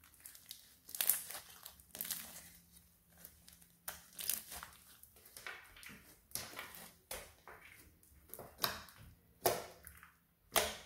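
Glitter slime with small beads mixed in, squished, folded and pressed by hand: a string of sticky squelches and crackles, about one or two a second, with a couple of sharper pops near the end.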